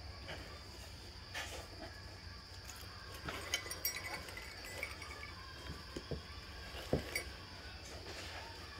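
Items being handled while rummaging through a bag of dance regalia: scattered small clicks and clinks, a few sharper ones about three and a half seconds in and near seven seconds. A steady faint hum runs underneath.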